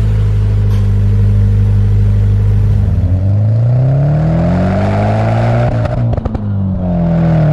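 Nissan SR20DET turbo four-cylinder running through an HKS Hi-Power aftermarket exhaust. It holds steady for about three seconds, then the revs climb for about three seconds. A few sharp cracks come as the revs ease back down near the end.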